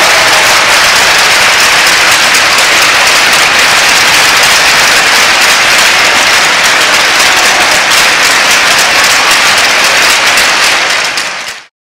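A large crowd in an ice rink applauding steadily, many hands clapping at once, then fading out sharply near the end.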